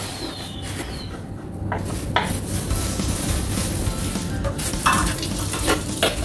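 Pan of food sizzling steadily on the stove, with a few sharp knocks of a knife and tomato-handling on a plastic cutting board.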